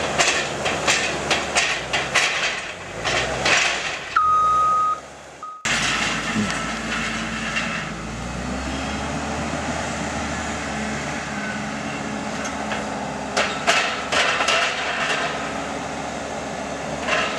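Heavy diesel farm machinery running, with bursts of rapid clanking knocks, a single steady beep about four seconds in, and a sudden cut in the sound a little later.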